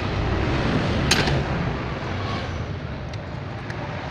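A steady low background rumble, with a few sharp clicks of metal parts and hand tools: a distinct one about a second in and fainter ones later.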